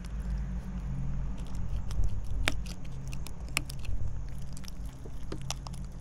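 Serrated knife sawing and prying through the bony collar of a tautog (blackfish), with scattered crunches and sharp cracks as the bone gives way, over a low steady hum.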